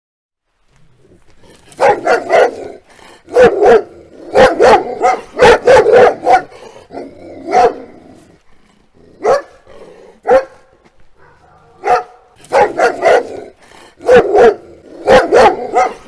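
A dog barking angrily, in quick runs of two to four barks with short pauses between. The first barks come about two seconds in.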